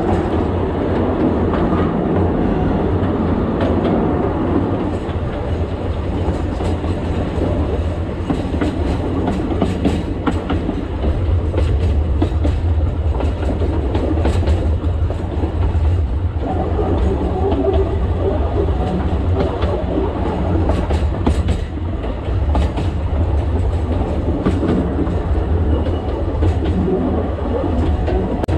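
Narrow-gauge forest railway train running along the track, heard from the driver's cab: a steady low rumble with frequent sharp clicks and clatter from the wheels over the rails.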